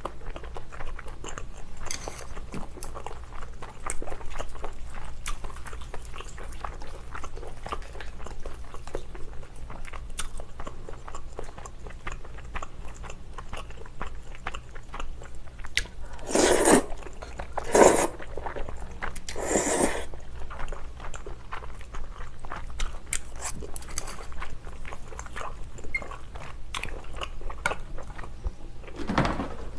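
Close-miked eating of kimchi stew with glass noodles: wet chewing and small clicking mouth sounds, with three louder, longer slurps about two-thirds of the way through.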